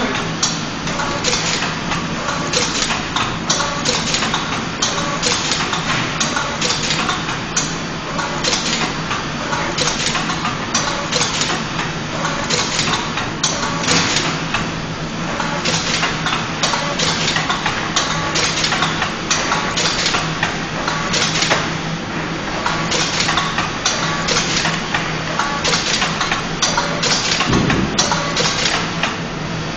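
Automatic flat-pack-card labelling machine running: a steady motor hum under frequent, irregular sharp clacks from the card feeder and the top and bottom label applicators.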